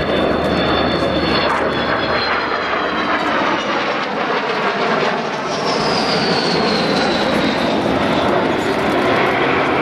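Avro Vulcan delta-wing bomber flying past, its four Rolls-Royce Olympus jet engines giving a loud, steady jet noise. A high whine over it falls in pitch from about halfway through as the aircraft passes.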